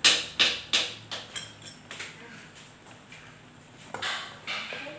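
A metal spoon knocking sharply three times against a frying pan, then several lighter clicks, as cumin is shaken off into the pan. Near the end, a wooden spoon scrapes briefly through the thick harissa paste.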